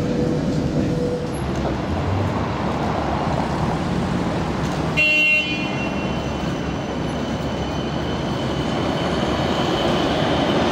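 Transtech Artic low-floor tram: first cabin running noise inside the moving tram, then, after a brief high-pitched toot about five seconds in, street traffic noise as the tram passes close by, with a steady high electric whine growing toward the end.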